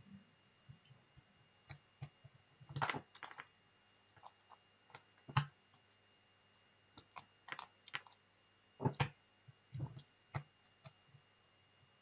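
Irregular clicks, taps and knocks from hands handling a small robot car kit on a tabletop: its acrylic chassis, jumper wires and a small screwdriver. The loudest knocks come about five seconds in and twice in quick succession about nine seconds in.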